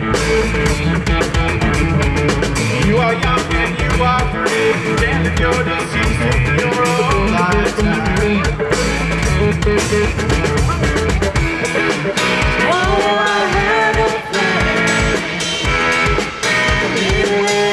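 Live rock band playing: electric guitars, bass and drum kit, with a woman singing. The heavy low bass drops out about two-thirds of the way through.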